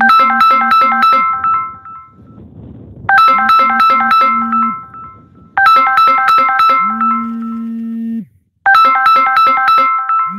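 Background music: a short, bright electronic keyboard phrase of quick notes over a held low note, repeated about every two and a half to three seconds.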